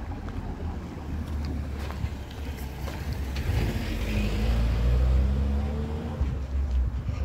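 A car passing close by, its engine and tyres growing louder to a peak about five seconds in and then fading.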